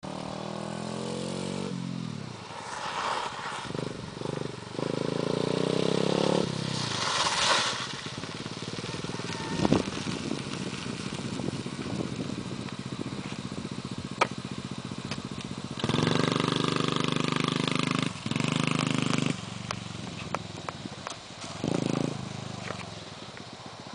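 A small mini dirt bike engine running and revving in bursts as the bike rides round a dirt track. Its pitch rises as it accelerates, and it is loudest about two-thirds of the way through, with shorter bursts after that.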